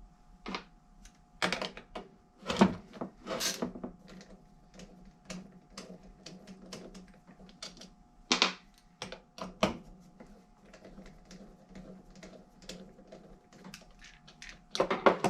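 Irregular small metal clicks, taps and knocks from a Rochester throttle body's fuel meter assembly being worked at by hand, stuck fast on its old gaskets. A few louder knocks stand out among the lighter clicks.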